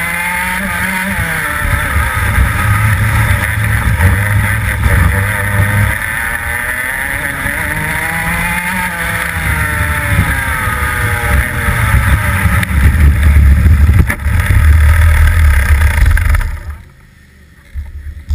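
Rotax two-stroke kart engine heard from onboard, revving up and falling back repeatedly as the kart laps. A little past sixteen seconds in the engine sound drops away suddenly, leaving faint noise and a few clicks.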